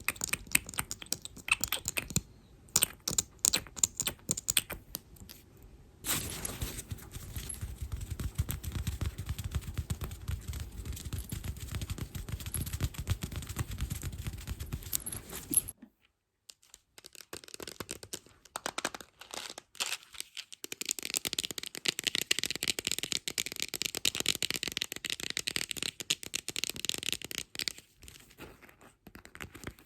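Close-miked ASMR trigger sounds with no talking. Sharp clicks for the first six seconds, then a dense scratchy rubbing with a heavy low rumble until a brief cut about sixteen seconds in, then crisp crinkling mixed with clicks.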